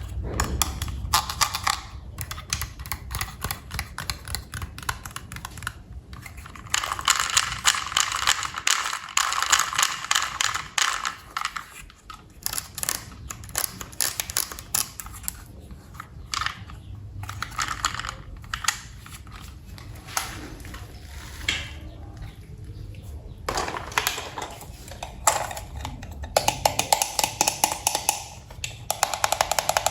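Plastic toy train parts and packaging being handled, with rapid, dense clicking and rattling in bursts and quieter pauses between.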